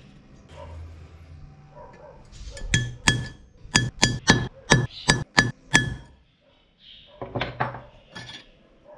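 Metal tool striking a steel plate: about nine sharp metallic clinks, roughly three a second, each ringing briefly at the same pitch. A few duller knocks follow near the end.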